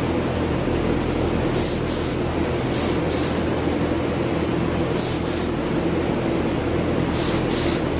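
Compressed-air paint spray gun hissing in short paired bursts, about four pairs, as paint is sprayed. Underneath is the steady loud drone of a large exhaust fan.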